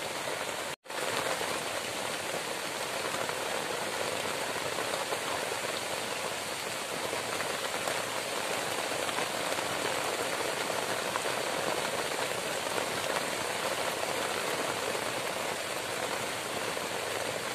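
Heavy tropical rain falling steadily on a shelter roofed with palm fronds and leaves and on the surrounding foliage, with a momentary dropout just under a second in.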